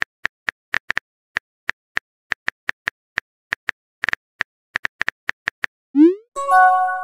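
Phone keyboard tap clicks, about three a second with uneven gaps, as a text message is typed; about six seconds in, a rising swoosh and then a short ringing chime as the message is sent.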